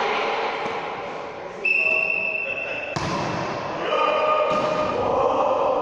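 Indoor ball game in a sports hall: a ball bouncing with thuds, players' voices, and a single steady high whistle blast of about a second, starting about a second and a half in.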